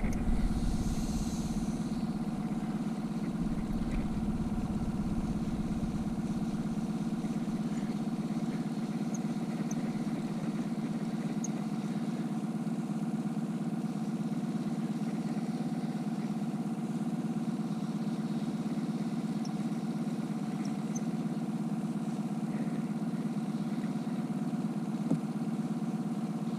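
Boat's outboard motor running steadily at trolling speed, an even drone that holds constant.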